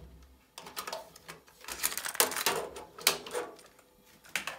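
Plastic clicks and clacks from a Kenwood KX-67W cassette deck's door and a cassette tape being handled and loaded, a quick irregular run of them.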